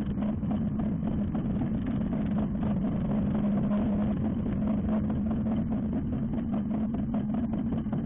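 Microlight aircraft engine and propeller running at a steady pitch, with a constant low hum.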